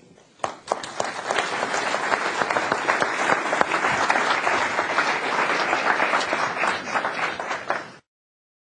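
Large audience applauding, starting about half a second in and holding steady, then cut off abruptly near the end.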